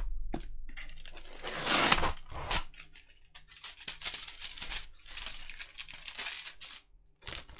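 Cardboard packaging being torn open by hand: a run of ripping and crinkling, loudest about two seconds in.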